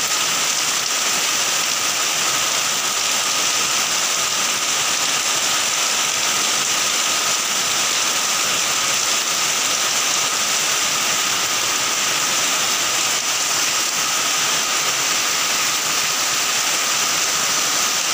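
Heavy rain pouring down steadily, a dense even hiss that holds at the same level throughout.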